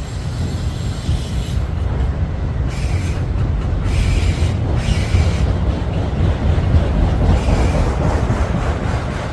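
Train rolling past close by: a steady low rumble of the cars on the rails, with wheels squealing on and off through the first half.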